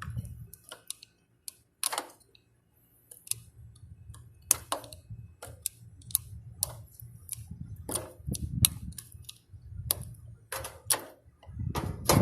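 Irregular light clicks and taps of hand work at an air conditioner's magnetic contactor: wires and terminal screws being handled, a dozen or so sharp clicks spread unevenly over the stretch.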